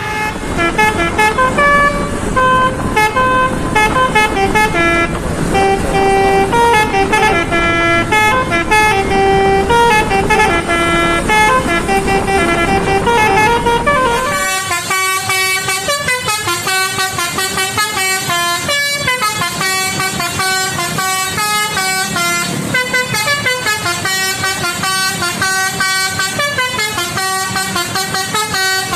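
Bus 'basuri' telolet horn, a multi-trumpet musical horn playing a tune in stepped notes over a low engine rumble. About halfway the rumble drops away and the horn notes turn short and choppy.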